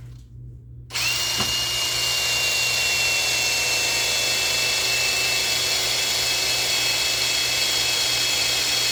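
Power drill running with a step bit cutting into a piece of steel, starting about a second in and running steadily until the end, with a high whine from the bit on the metal. The bit is cutting dry, without oil.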